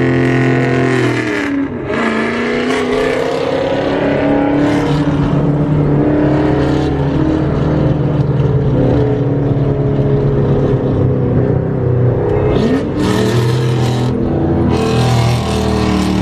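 Ford Mustang's 4.6-litre three-valve V8 with aftermarket exhaust accelerating hard, shifting twice: the engine pitch drops at each shift, about 2 s in and about 13 s in, then climbs steadily again.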